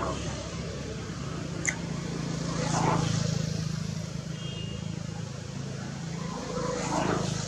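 Low, steady engine hum of a road vehicle that swells twice, about three seconds in and again near the end, with one sharp click about a second and a half in.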